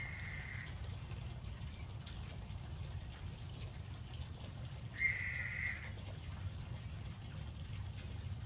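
Two steady, high whistled notes, each held just under a second and about five seconds apart, over a steady low rumble.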